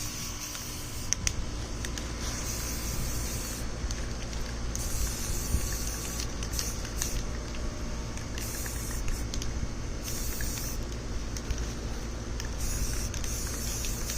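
Aerosol spray-paint can (Rust-Oleum flat camouflage green) spraying in a series of short hissing bursts of a second or two each, with brief pauses between, over a steady low rumble.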